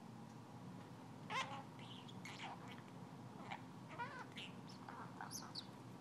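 Pet budgerigar (budgie) giving a string of short, scattered chirps and chattering calls, some sliding in pitch and some very high and thin.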